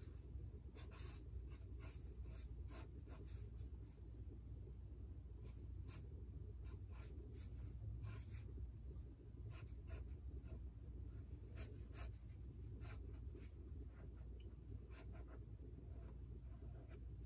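Fine-tip ink pen scratching across sketchbook paper in short, irregular strokes, some in quick runs, some with pauses between. A faint steady low hum lies underneath.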